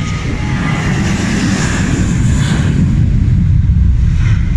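Jet airliner engines running: a loud low rumble with a hiss that swells and fades over the first few seconds.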